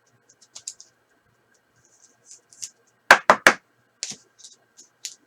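Trading cards being handled: light clicks and scrapes of cards sliding over one another. About three seconds in come three sharp clacks in quick succession.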